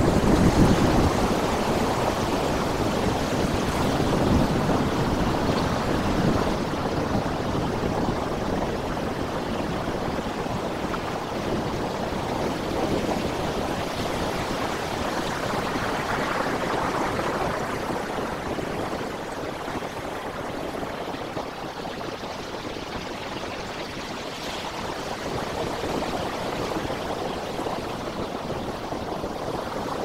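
Sea surf breaking and washing over rock ledges: a steady rush of water that swells and eases, loudest in the first second and swelling again a few times after.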